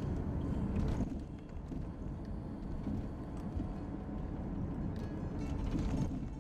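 Cabin noise of a moving car: a steady low rumble of engine and tyres on the road.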